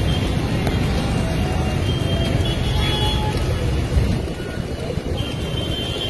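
Steady city street traffic rumble, with faint high tones now and then.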